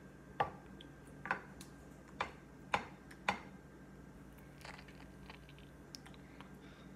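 Five sharp clicks in the first few seconds, roughly half a second to a second apart, then a few fainter ticks.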